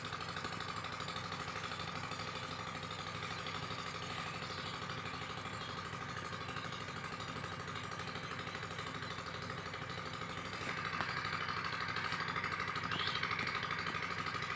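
A machine running steadily, a low hum with a held whine over it; it grows louder about eleven seconds in.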